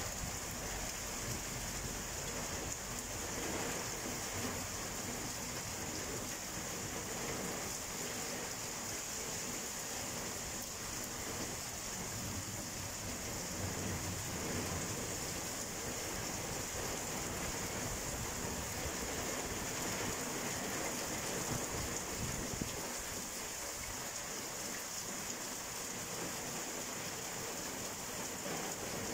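Steady rain pouring down in a spring thunderstorm, with low rumbles of thunder now and then, near the start and again about halfway through.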